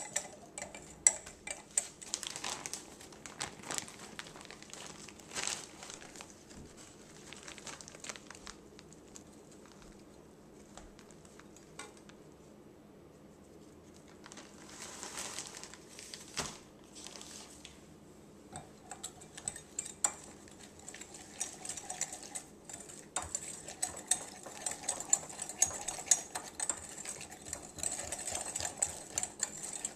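Sauce being whisked in a glass measuring cup: rapid clinking and scraping of the utensil against the glass. It goes quieter for a few seconds in the middle, then picks up again as a fast, even clatter near the end.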